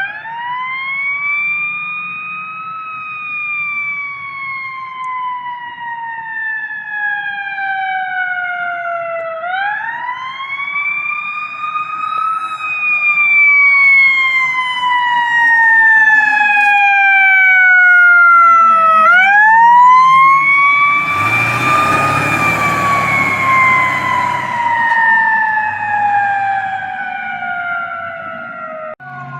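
Emergency vehicle siren wailing three times, each cycle winding up quickly and then falling slowly in pitch. A rushing noise with a low rumble swells in about two-thirds of the way through.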